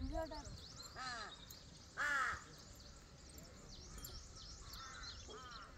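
A crow cawing about five times in short calls, the loudest about two seconds in.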